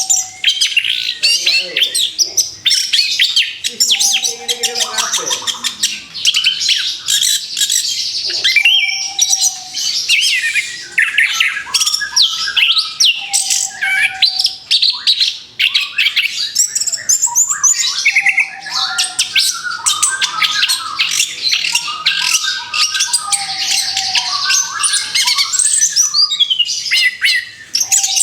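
Orange-headed thrush singing a fast, continuous, varied song of high chirps and trills. A short, low, steady note recurs about every four to five seconds.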